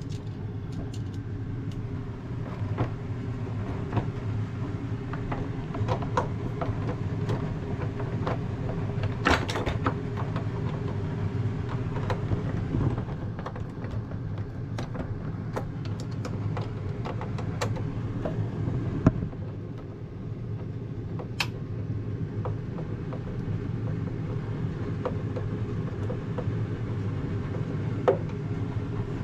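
Scattered metallic clicks and taps of hand tools as the refrigerator door's hinge bolts are started with a Phillips screwdriver and tightened, over a steady low hum.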